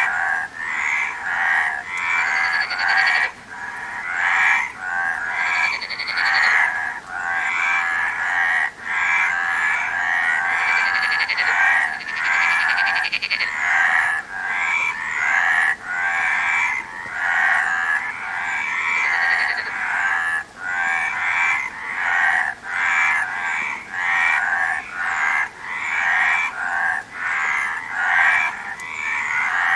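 Chorus of frogs croaking: many overlapping calls repeating in quick succession without a break, with a few short higher-pitched notes here and there.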